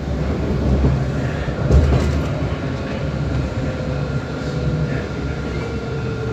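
Alstom Citadis tram of the Dubai Tram running on its rails, heard from inside the car: a steady low rumble with a faint electric motor whine that drifts slightly lower in pitch near the end, and a brief bump about two seconds in.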